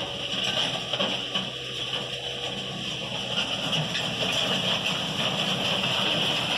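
Compact JCB telehandler's diesel engine running steadily under load as it pushes a grading attachment through loose soil, getting slightly louder as it comes closer, with a steady high-pitched hiss over it.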